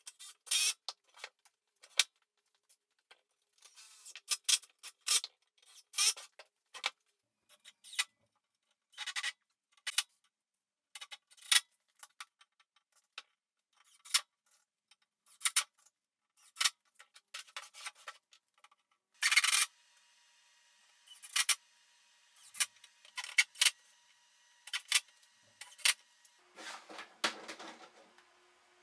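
Scattered sharp clicks, taps and brief scrapes, irregularly spaced, from handling small parts and tools.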